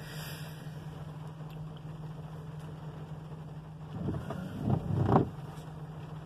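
A van's engine idling with a steady low hum, heard from inside the cabin. About four seconds in, a brief cluster of short, rising squeaky sounds rises above it.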